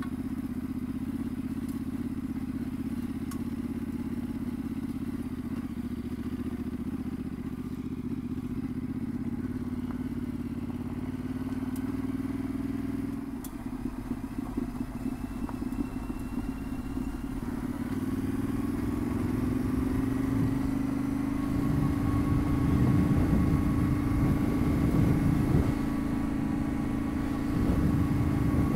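Yamaha Ténéré 700's parallel-twin engine running on a dirt-road ride: a steady drone for the first half, easing off about halfway through, then rising in pitch and holding higher. A rough rumble joins it over the last third.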